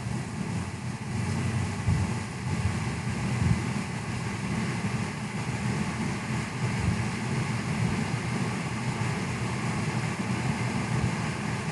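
Small milling machine running with a steady rumble and a faint high whine.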